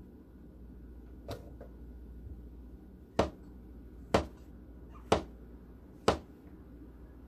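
Chef's knife slicing mushrooms on a plastic cutting board: a light tap, then four sharp knocks of the blade hitting the board, about a second apart.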